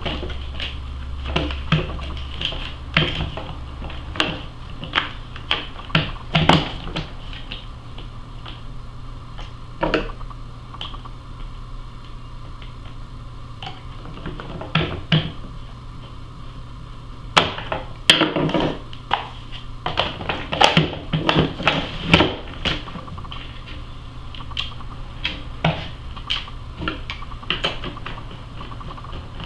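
Clicks, taps and knocks of an upright vacuum's plastic base and brush roll being handled and fitted back together, with a screwdriver turning screws into the housing near the end. The clicks are irregular and come thickest a little past the middle.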